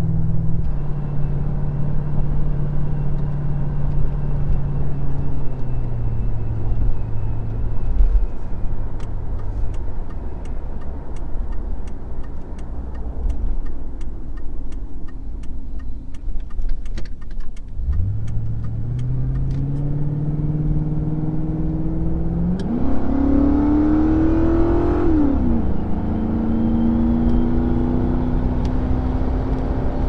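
The 4.6-litre V8 of a 2003 Mercury Grand Marquis, heard from inside the cabin. The engine note falls as the car slows. Then a turn signal ticks about twice a second for several seconds, and from a little past halfway the engine climbs steadily under acceleration, its pitch stepping as the automatic transmission shifts.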